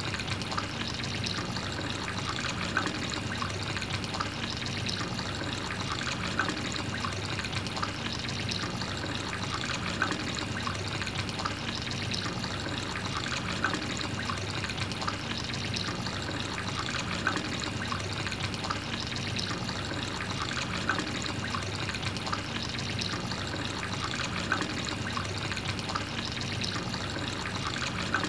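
Water trickling steadily from a thin hose onto wet sand, pumped by a toy water pump, with light ticks now and then.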